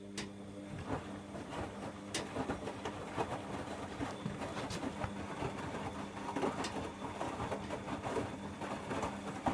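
Bosch Logixx 8 washing machine turning its drum in the wash phase: a steady motor hum that builds over the first second, under irregular sloshing and soft knocks of wet towels tumbling in the water.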